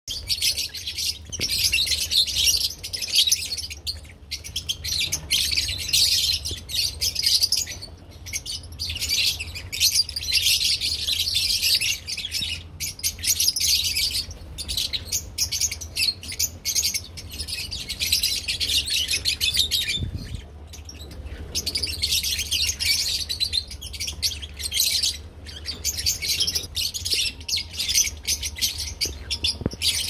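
A flock of lovebirds chattering together: dense, high-pitched chirping that swells in waves a few seconds long with short lulls between, over a low steady hum.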